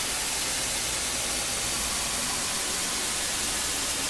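Steady, even hiss of white noise, like television static: a static sound effect under an animated end card.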